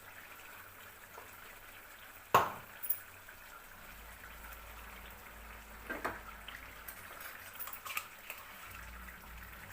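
Chicken simmering in its released juices in a pot, a soft steady bubbling, while ground masala paste is scooped in from a mixer jar. A sharp knock about two seconds in and lighter clinks around six and eight seconds in are a spoon striking the jar and the pot.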